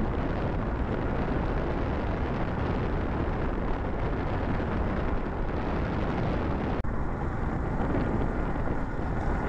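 Steady wind rushing over the microphone of a moving rider, with tyre and road rumble beneath it; the hiss thins a little about two-thirds of the way through.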